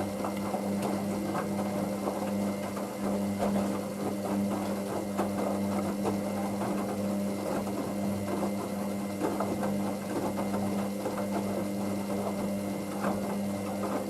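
Hoover DYN9144D3X washing machine running its 40 °C main wash with towels: a steady motor hum with faint irregular ticks.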